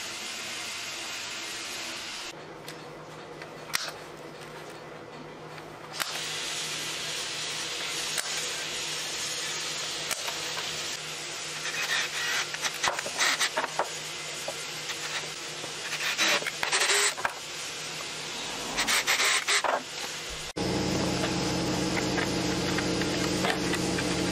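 Cordless drill running in short bursts, drilling through the plastic base of a Bosch L-BOXX tool case. Near the end a steady hum with several tones starts suddenly.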